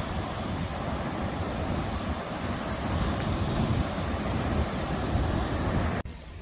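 Steady rushing noise of wind buffeting the microphone, with an uneven low rumble. It cuts off abruptly near the end.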